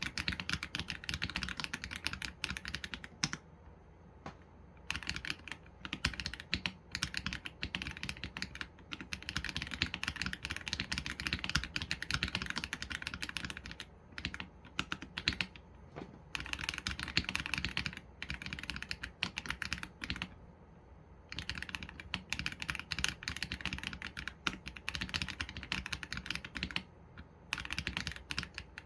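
Typing on an AULA F87 Pro mechanical keyboard with Leobog Graywood V3 linear switches and PBT keycaps: fast runs of keystrokes, broken by short pauses of about a second.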